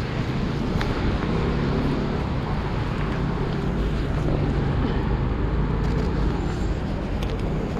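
Road traffic on a wet city street: vehicle engines running steadily under a constant hiss.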